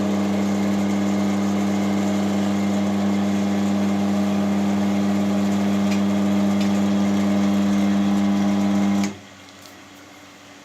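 Wood lathe running with a steady motor hum while a skew chisel cuts into the spinning wood, then stopping abruptly about nine seconds in.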